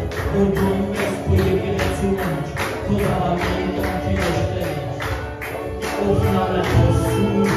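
Worship music played on a Yamaha electronic keyboard: sustained chords over a steady beat of about two strokes a second.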